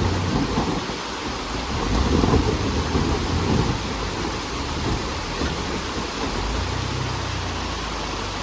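Jeep Wrangler TJ engine running under load on a rock climb, with heavy rumbling wind buffeting on the microphone. The low engine note swells about two seconds in and again near the end.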